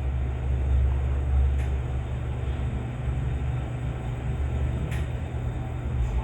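Elevator car running between floors: a steady low hum and rumble, with a few faint clicks.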